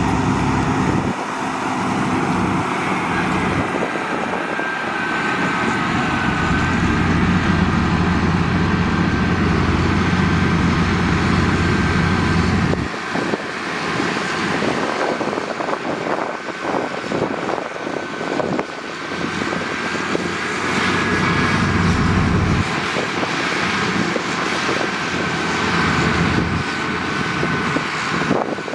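Heavy diesel construction machinery running under changing load; the deep engine sound swells and drops back several times, over a faint steady high-pitched whine.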